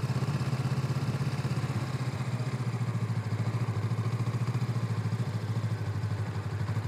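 Motorcycle engine running at a steady idle, an even rapid pulse with no revving.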